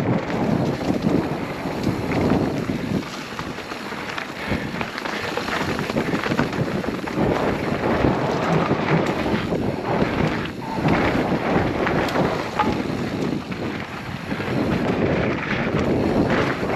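Mountain bike riding down a rough, rocky trail: wind rushing over the microphone, mixed with the noise of tyres rolling over the trail, rising and falling unevenly.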